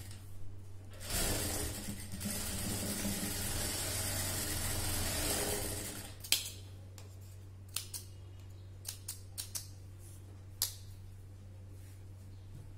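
Industrial lockstitch sewing machine running, with a brief pause just after the start, then stopping about six seconds in. Scissors then snip the threads several times in quick clicks under a steady low hum.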